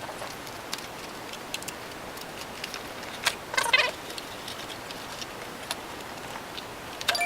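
A headphone box and its packaging being opened by hand: scattered light clicks and rustles, with a louder run of quick scraping sounds just past the middle and another near the end.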